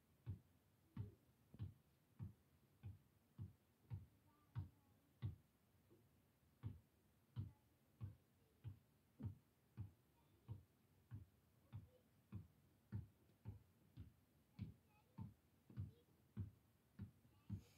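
A ball being dribbled on a concrete driveway: faint, regular thumps about one and a half a second, with a pause of a second or so near the middle. Heard from inside a car.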